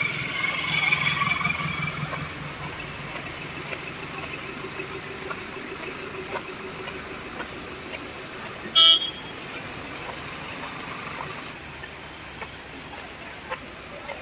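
Steady heavy rain falling on paving and vehicles. A vehicle engine runs through the first couple of seconds, and a single short horn beep sounds about nine seconds in.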